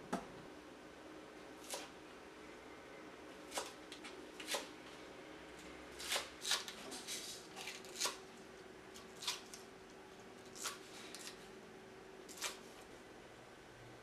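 Chef's knife cutting through spring onion stalks onto a wooden cutting board: about a dozen separate chops at uneven spacing, a few coming in quick succession around the middle.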